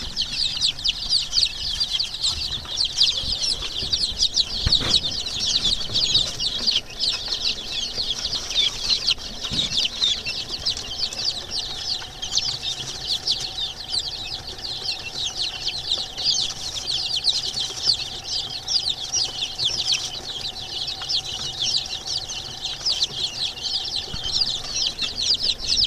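A brood of young domestic chicks peeping continuously: many short, high, downward-sliding cheeps overlapping one another.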